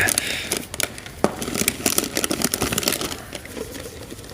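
Snack packaging rustling and crinkling as items are handled, with many small crackly clicks that are loudest at first and fade toward the end.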